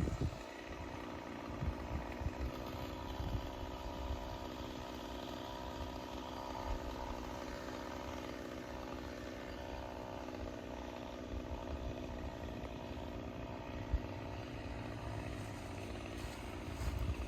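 Two-stroke chainsaw engine idling steadily between cuts, with irregular low thumps underneath.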